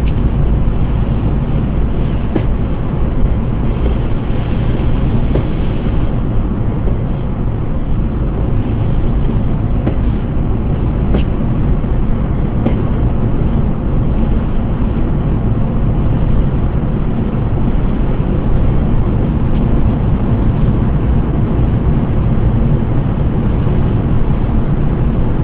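Steady road and engine noise inside a moving car, heaviest at the low end.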